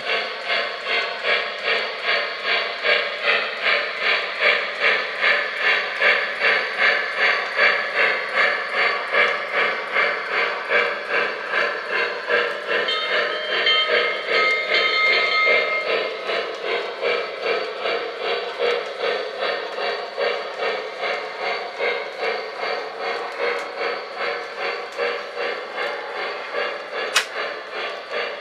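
Sound-equipped model 2-8-2 Mikado steam locomotive chuffing steadily at about two beats a second as it runs, with a whistle blast of about three seconds near the middle. A single sharp click sounds near the end.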